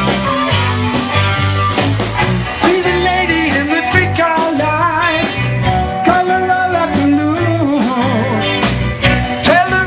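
Live blues-rock band playing an instrumental passage: drums, bass and electric guitar keep a steady beat while a saxophone plays a wavering lead line over the top.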